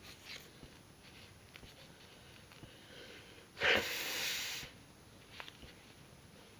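A person blowing their nose into a tissue: one hard blow lasting about a second, just past the middle.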